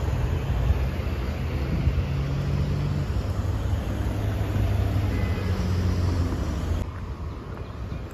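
Street traffic noise with a motor vehicle engine running close by, a steady low hum that steps down in pitch about three seconds in. The rumble drops off abruptly near the end.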